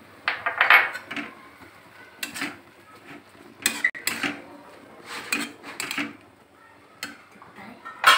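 Metal spatula scraping and clinking against a metal kadai as chicken mince with spring onions is stirred, in short irregular strokes about once a second.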